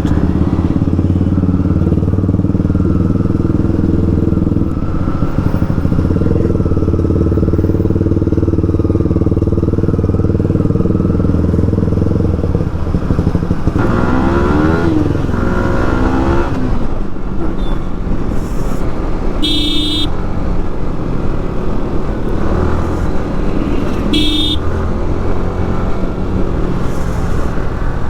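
Motorcycle with a fitted aftermarket exhaust running steadily, its engine note dipping and climbing again about halfway through. Two short horn beeps come later.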